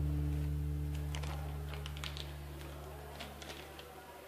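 Background music dying away: a low held note fades slowly, with a few faint clicks.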